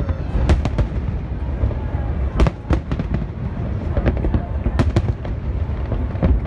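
Aerial fireworks shells bursting in an irregular string of sharp bangs and cracks over a continuous low rumble. The loudest bangs come about two and a half seconds in and again near five seconds.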